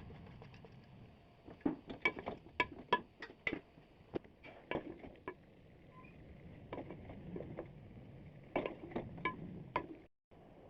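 Kitchenware clinking and knocking: a quick run of sharp metal or glass clinks, some ringing briefly, for a few seconds, then a second shorter burst of clinks near the end.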